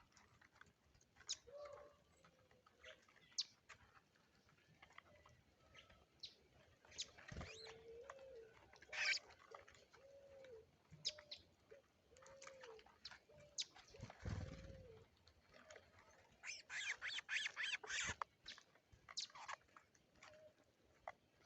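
Faint birds at a feeder: a dove cooing in short, low hoots about once a second, among scattered sharp chirps and clicks. Near the end comes a quick run of sharp chirping notes.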